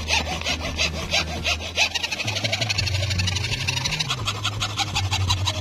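Hacksaw cutting through a PVC sheet in quick back-and-forth strokes, the strokes coming faster about two seconds in.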